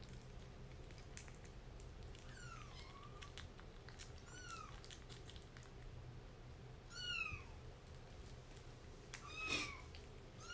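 A kitten mewing: four short high mews a couple of seconds apart, each rising then falling in pitch, the last the loudest. Faint clicks of a kitten eating wet food from a bowl run underneath.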